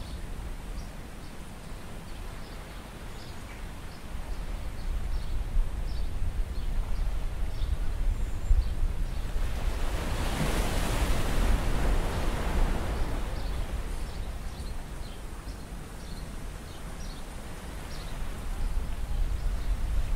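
Steady wash of wind and sea noise with a low rumble, and light rustling as a nylon fishing net is handled. The noise swells for a few seconds around the middle.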